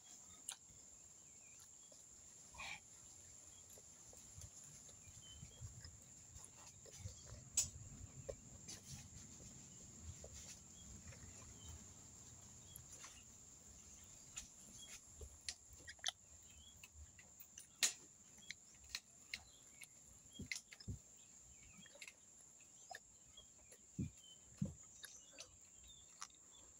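Faint sounds of someone eating with their hands: scattered soft clicks and smacks of chewing over a steady faint high hiss.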